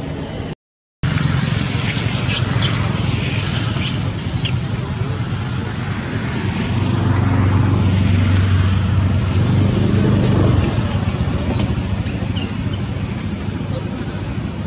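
Road traffic noise with a motor vehicle's low engine hum that swells as it passes, loudest from about seven to ten seconds in. The sound drops out completely for a split second near the start.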